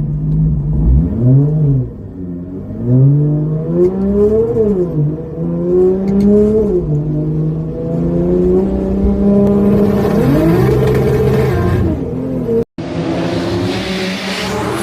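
Turbocharged Toyota 2JZ straight-six engine revving up and dropping back several times as the car accelerates and lets off, with a steady cruising stretch in the middle. Near the end the sound cuts out for an instant and gives way to a steady rushing noise.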